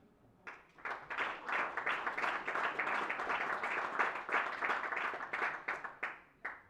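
Audience applauding: a run of hand claps that starts about half a second in and dies away near the end.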